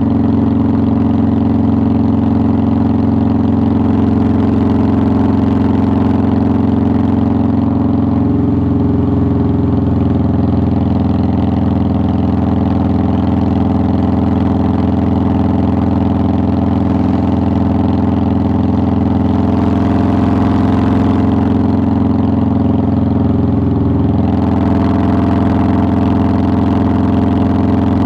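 2009 Harley-Davidson Softail Deluxe's air-cooled V-twin engine running steadily under way, its note shifting slightly about a third of the way in and again near the end.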